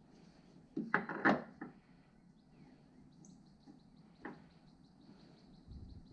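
A cluster of short knocks and clatters about a second in, then a single knock a few seconds later, from parts being handled during front suspension work.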